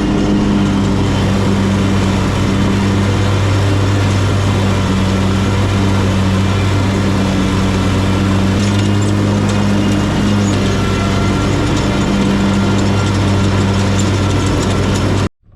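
Exmark X Series mower engine running steadily while cutting tall grass; the sound cuts off suddenly near the end.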